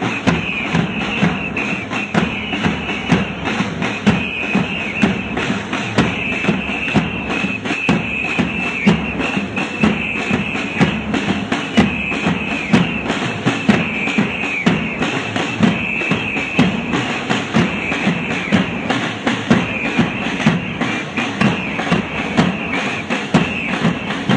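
Drums beating in a steady, repeating rhythm over a constant din.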